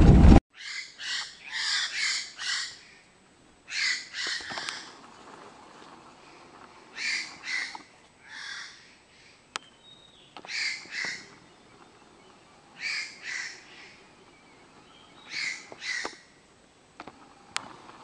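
Lidth's jay (Amami jay) calling, in short runs of one to four rasping notes with a run every two to three seconds.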